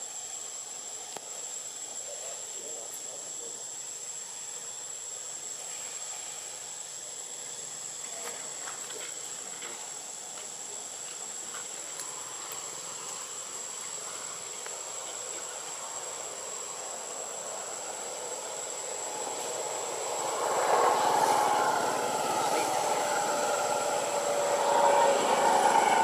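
Insects droning in the trees: a steady high thin tone over a faint hiss. About twenty seconds in, a louder low droning sound with several steady tones builds and holds to the end, drowning part of the insect sound.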